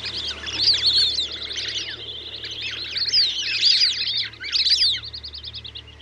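A flock of plumed whistling-ducks calling: many shrill, overlapping whistles that swoop up and down, giving way after about five seconds to a quicker run of short, even notes.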